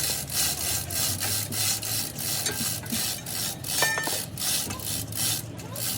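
A hand tool rasped back and forth across a surface in even scraping strokes, about three a second, over a steady low hum.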